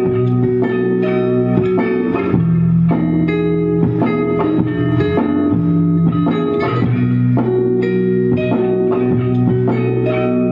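Live band music: electric guitar over bass and drums, with sustained chords changing every second or two.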